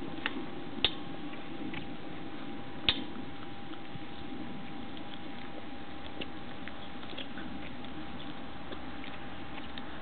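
Weimaraner puppies eating together from one bowl: soft chewing and lapping with scattered sharp clicks, the two loudest about a second in and about three seconds in.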